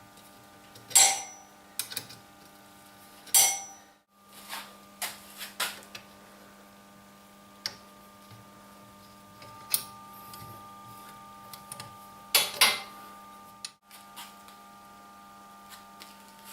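Steel parts being knocked and handled: a few sharp metallic clanks with a brief ring, the loudest a double strike near the end, and lighter taps between them over a faint steady hum.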